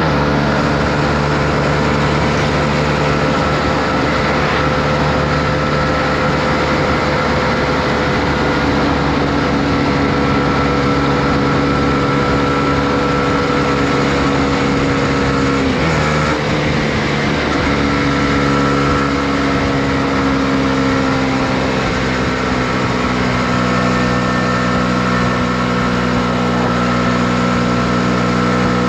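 Honda CB125R's single-cylinder four-stroke engine running steadily under way, over a rushing noise. About sixteen seconds in the note drops and breaks off briefly, then comes back at a lower pitch, as at a gear change.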